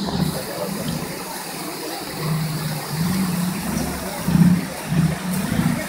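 Off-road 4x4 engine revving in repeated surges, its pitch rising and falling again and again, loudest about two thirds of the way through.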